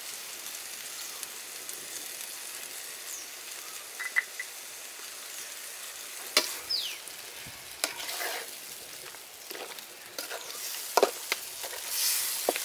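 Chicken pieces with onion, tomato and spices sizzling steadily in a metal pot over a wood fire, with a few sharp clicks, then a louder scrape near the end as a metal spatula starts stirring the pieces.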